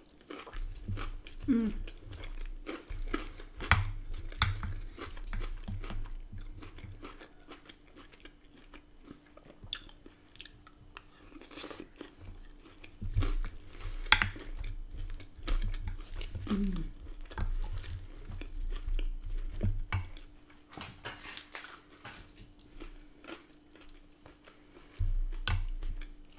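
Close-up chewing and crunching of a mouthful of chicken burrito bowl with raw lettuce and cucumber. The chewing comes in bouts with short quieter pauses between them.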